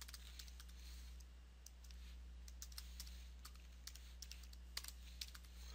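Computer keyboard keys tapped in short, irregular runs: a password being typed. Faint, over a steady low electrical hum.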